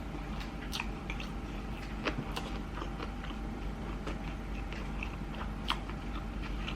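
A person chewing a mouthful of sushi close to the microphone: soft wet mouth clicks and smacks at irregular intervals, over a steady low hum.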